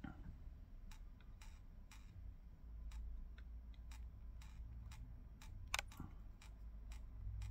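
Faint, irregular small clicks and taps of a screwdriver and soldering iron against the transmitter's circuit board, the loudest about six seconds in, over a low steady hum.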